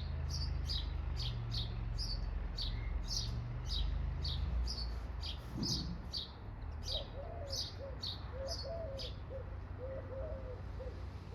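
A songbird chirping in a long series of short, high chirps, about two or three a second, stopping about nine seconds in. From about seven seconds a lower, wavering call joins in, over a steady low rumble.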